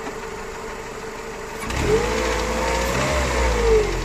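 Mercedes-Benz M111 inline-four engine idling steadily, then revved up about two seconds in and let fall back toward idle near the end. The engine has a knock.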